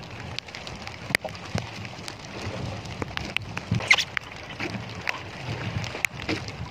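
Rain falling on the sea and on a small boat, with many scattered sharp ticks of drops striking close by over a low rumble of water and wind.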